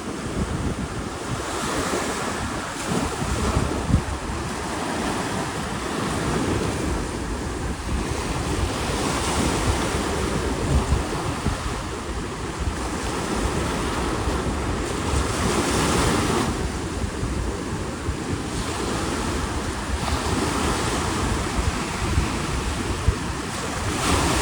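Ocean surf breaking on a sandy beach, the wash of the waves swelling every few seconds. Wind buffets the microphone with a low rumble.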